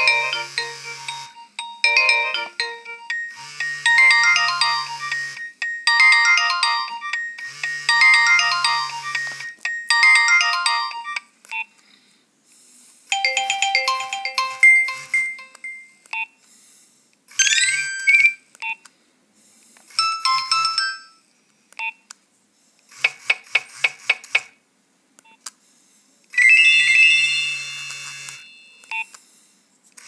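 Nokia 2600 ringtones played through the phone's small speaker as they are previewed: a short polyphonic tune repeats about every two seconds for the first eleven seconds, then after a brief gap a series of different short melodies and tones follows.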